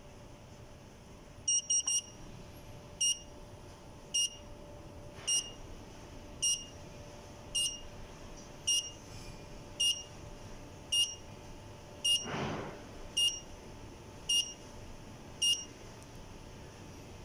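Buzzer of a WiFi gate-opener receiver beeping in pairing mode while it connects to the phone app: three quick beeps, then a single high beep about once a second, stopping near the end.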